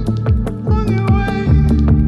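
Music: a krautrock-tinged indie track with a steady driving drum beat, a bass line and a high wavering lead line that bends in pitch.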